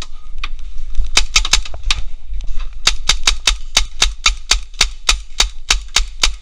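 Paintball markers firing at close range: a rapid string of sharp shots, each with a dull thump, in an uneven burst about a second in, then a steady run of about four shots a second.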